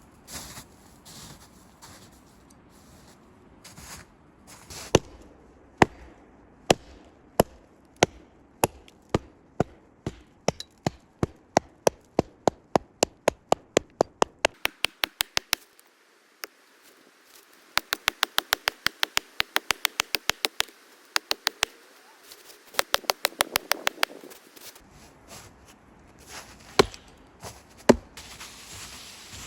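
Repeated sharp knocks of a tool striking wood. They start about a second apart, then come in fast runs of up to about five strikes a second, with short pauses between the runs.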